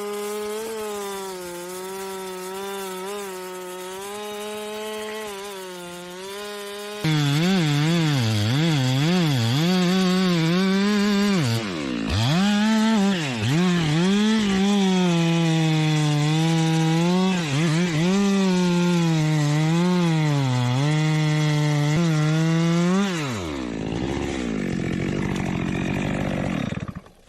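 Chainsaw running at high revs in a cut, its pitch wavering and dipping as the chain loads up in the wood. It gets louder about seven seconds in, dips sharply once around twelve seconds, and near the end drops to a low rumble and stops.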